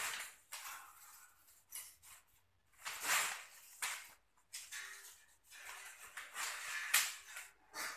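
A cord being pulled hand over hand, each pull a short scraping swish of it rubbing and dragging over the concrete floor, about a dozen in irregular succession.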